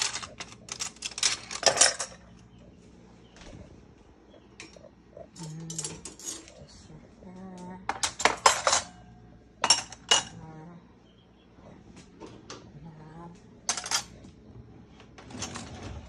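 Stainless steel forks and spoons clinking and clattering as they are dropped into a plastic cutlery tray in a drawer, in several short bursts with pauses between.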